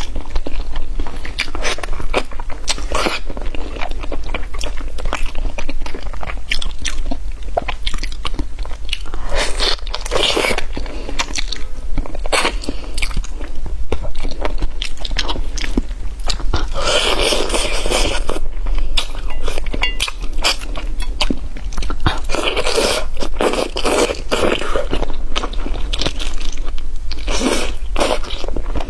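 Close-miked eating of crispy fried food: crunching bites and chewing, with denser bouts of crunching at a few points, over a steady low hum.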